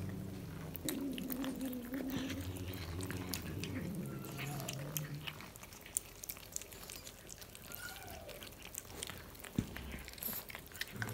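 Cats chewing pieces of cooked chicken on a hard floor, with many small wet clicks and crunches. A low, drawn-out pitched sound runs through the first half.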